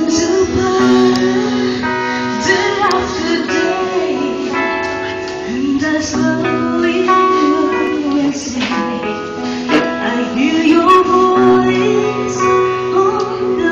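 A singer performing live with a band, the voice holding long wavering notes over sustained chords and light cymbal strikes.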